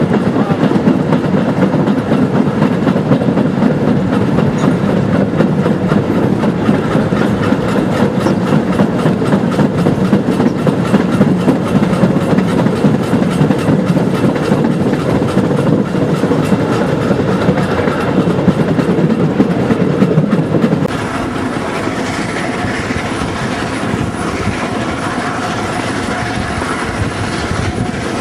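Narrow-gauge Zillertal Railway train heard from aboard a carriage: wheels rumbling and clattering over the track. About twenty seconds in the sound cuts abruptly to a quieter, steadier running noise with a faint high whine.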